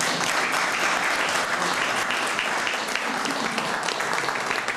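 Audience applauding: a dense run of many hands clapping at once, thinning toward the end.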